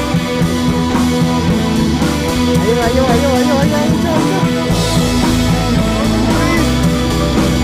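Background music: a rock or hip-hop track with guitar and drums.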